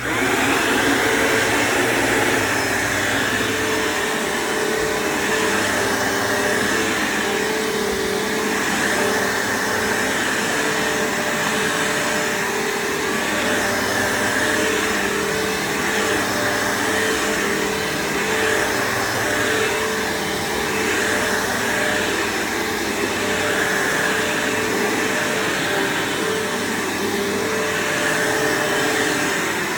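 Bissell PowerForce bagged upright vacuum cleaner switched on and running steadily while vacuuming, with a gentle rise and fall in its sound about every two seconds.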